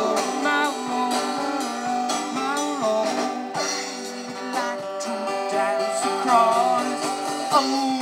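A band playing live: guitars with a voice singing a wavering melody over them.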